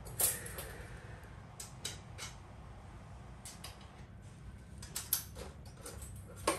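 Scattered light clicks and knocks as a measuring ruler is handled and laid against a steel shoe anvil, sharpest about a quarter second in, around five seconds in and near the end, over a faint steady low hum.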